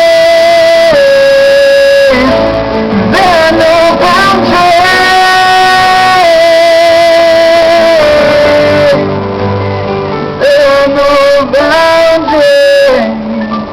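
Live pop-ballad performance: a male singer holds long wordless notes over acoustic guitar and band, stepping from one held pitch to the next.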